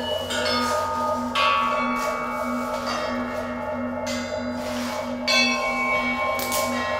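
Struck metal percussion ringing out, one bell-like strike every second or so with each tone left to ring and fade, the loudest strikes about a second and a half in and near the end. Beneath it a low drone pulses steadily.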